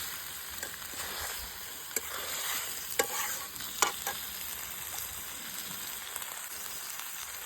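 Chicken frying and sizzling in a pan, a steady hiss, with three sharp clicks against the pan in the middle.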